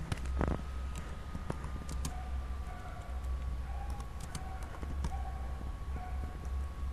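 Slow typing on a computer keyboard: scattered, irregular key clicks over a steady low hum.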